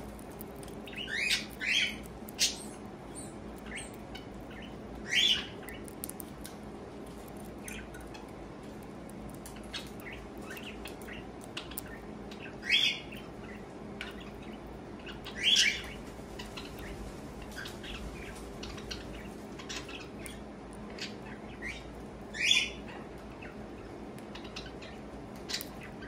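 Cockatiel giving short chirps every few seconds, about seven in all, with three close together near the start, over faint clicking as seeds are cracked in the beak.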